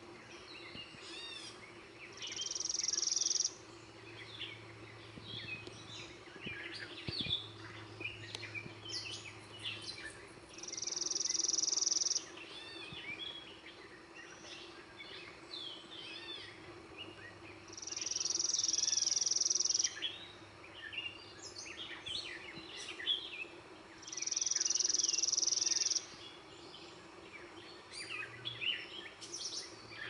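Dawn chorus of many birds chirping and calling, broken four times by a loud, high, dry trill about two seconds long, roughly every seven seconds. A faint steady low hum lies underneath.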